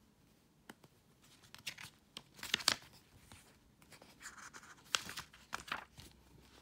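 Pages of a glossy paperback booklet being turned by hand: paper swishing and flapping in short bursts with a few small clicks, the loudest about two and a half seconds in and again around five seconds.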